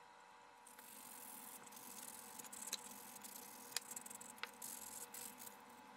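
Faint scraping of a hobby knife blade shaving excess plastic off the welded seam of a 3D-printed part, with a few light clicks.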